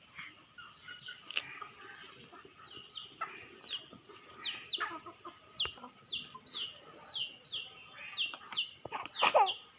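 Chicken calling: a run of short, high, downward-sliding peeps about twice a second, with one louder, longer falling squawk near the end.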